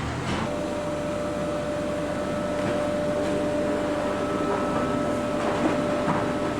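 CRAM-A-LOT HX-72-W baler and its conveyor running: a steady mechanical hum with a knock at the start and a steady whine that sets in about half a second in and holds.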